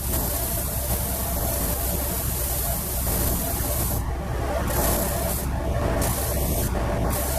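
Spindle sander running with a steady motor hum while a small plywood piece is pressed against the spinning sanding drum to sand a radius into its edge. The sanding hiss is continuous for about four seconds, then stops and starts several times as the piece is lifted off and pressed back.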